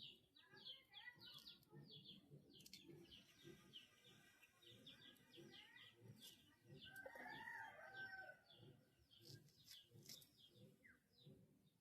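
Faint birds chirping in quick short notes, with a longer, wavering call about seven seconds in.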